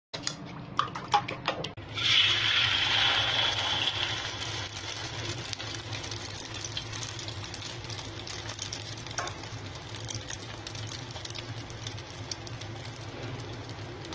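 A spoon clinking against a steel bowl of beaten egg, then about two seconds in a loud sudden sizzle as the egg meets hot oil in the pan, settling into a steady frying sizzle with small crackles.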